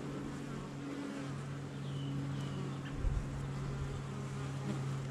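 Honeybees buzzing over an open hive, a steady hum that grows a little stronger about a second in. A brief low thump comes about three seconds in.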